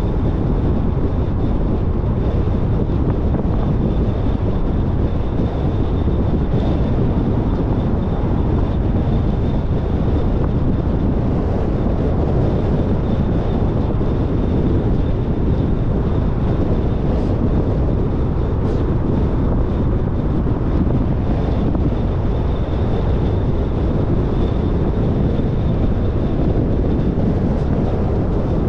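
Steady road and wind noise of a car driving, low and even throughout.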